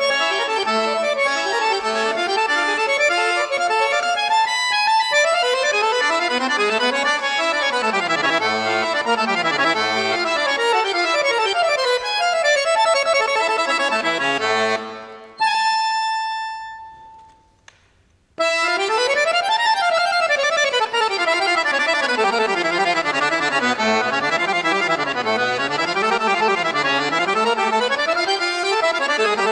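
Concert chromatic button accordion (bayan) playing fast scale runs that sweep up and down. About fifteen seconds in, the runs break off to one held note that fades away, followed by a moment of silence before the fast runs start again.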